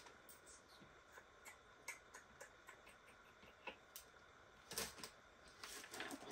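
Faint scattered clicks and taps of a fingertip on the plastic film over a diamond painting canvas, then a louder crinkle of small plastic bags of drills being handled near the end.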